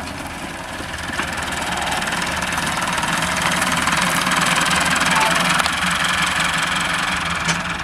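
Farm tractor's engine running steadily as it pulls a disc harrow through dry soil, the discs' scraping and rattling swelling to its loudest past the middle, then easing off.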